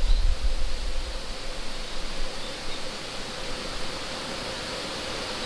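Wind gusting through forest trees, the leaves rustling in a steady hiss. A low rumble of wind on the microphone at the start dies away within about a second.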